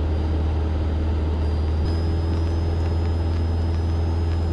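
Cessna 172K's four-cylinder engine and propeller droning steadily in flight, heard inside the cabin, with a slight shift in tone about two seconds in.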